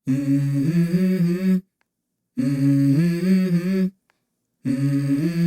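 Intro music: a wordless vocal line, hummed or sung, in three short phrases of stepping notes, each about a second and a half, with sudden silences between them.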